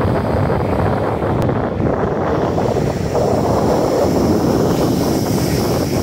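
Wind buffeting the microphone over breaking ocean surf, with a wave's wash growing louder and hissier in the second half.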